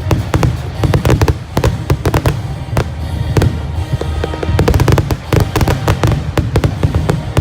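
Fireworks display going off in a dense, rapid barrage of sharp bangs and crackles, many per second, over music playing along with the show.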